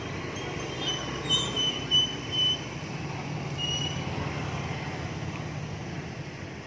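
Outdoor background noise: a steady low rumble, with a few short high-pitched squeals about one to two and a half seconds in and once more near four seconds.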